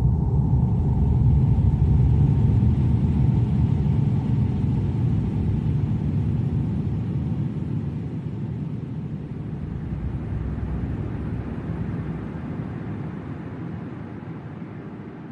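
Horror-style ambient wind: a deep, rumbling rush of wind with a faint eerie tone held under it, slowly fading away.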